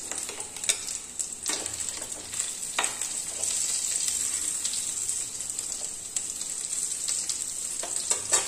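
Stuffed bitter gourds sizzling in hot mustard oil in a metal kadhai, a steady high hiss, with a metal ladle clicking and scraping against the pan a few times as they are turned and lifted out.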